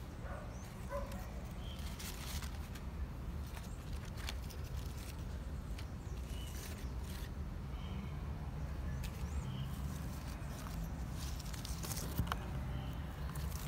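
Outdoor garden ambience: short bird chirps now and then over a steady low rumble, with scattered clicks and one sharper click near the end.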